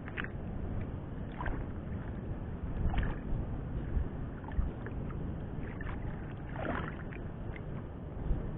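Sea water lapping and slapping against the hull of a small wooden fishing boat: a steady wash over a low rumble, with a few soft splashes.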